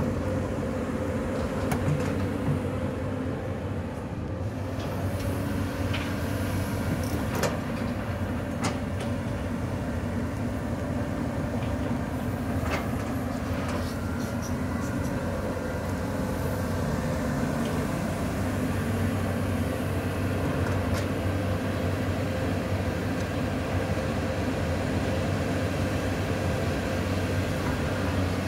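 Caterpillar 320D L long-arm excavator's six-cylinder diesel engine running steadily under digging load, with a few sharp clanks in the first half.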